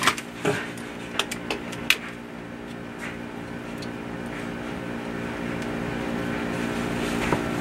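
Steady machine hum in a small room, with a handful of light clicks and plastic rustles from hands handling wires and zip ties at a sump pump's PVC discharge pipe.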